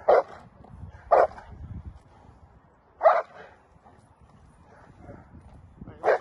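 A Dutch Shepherd barking four times in short, single barks, irregularly spaced over several seconds.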